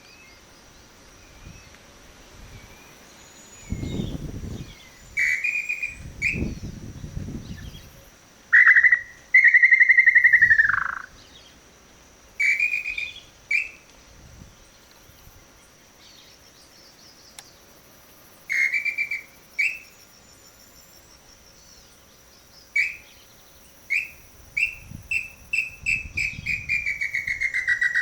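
Whistled tinamou-style calls of the pé-vermelho, from a call whistle (pio) and the birds answering it: short clear notes, two long falling whistles about a third of the way in that are the loudest, and near the end a run of quickening notes that slide downward in pitch. Two low rumbles early on.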